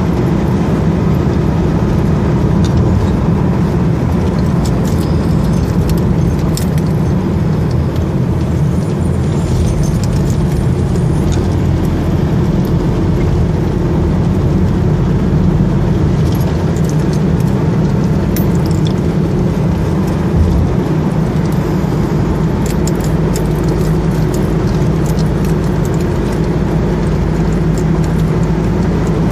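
Steady road noise of a car driving at speed, heard from inside the cabin: engine and tyre hum, with light rattles and clicks now and then.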